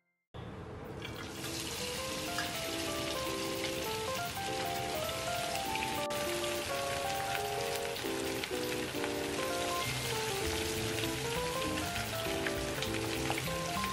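Hot cooking oil sizzling steadily as stuffed tofu pieces deep-fry in a stainless steel pan, starting suddenly just after the start. Background music plays under it.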